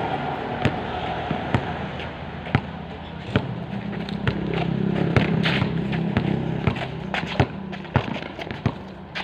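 Basketball bouncing on a concrete court, a sharp thud roughly once a second at an uneven pace as it is dribbled and shot. A low steady hum underneath grows louder about four seconds in and fades again by about seven seconds.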